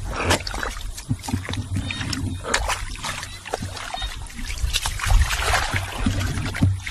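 Water splashing and sloshing in irregular bursts as people wade and grope by hand in shallow water. A low rumble runs underneath.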